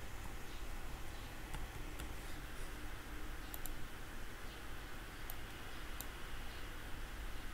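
A few scattered computer keyboard keystrokes and clicks over a steady background hiss.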